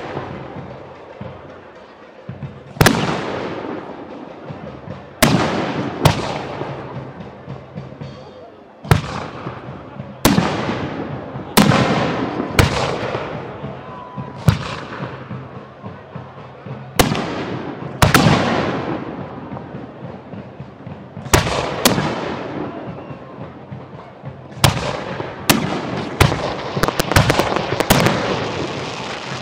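Aerial fireworks display: firework shells bursting one after another with sharp bangs every one to three seconds, each followed by a long fading rumble. A rapid volley of bursts comes close together near the end.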